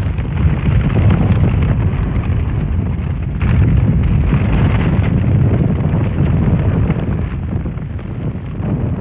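Wood fire burning hard in the firebox of a chambered climbing kiln during the bisque firing: a loud, steady noise of flame and draught, heaviest in the low end. It grows a little louder about three and a half seconds in.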